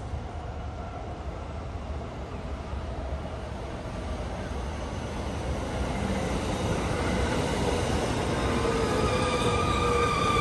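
Electric commuter train coming in and running alongside the station platform. Its rumble grows steadily louder, and several steady tones rise over it in the last few seconds.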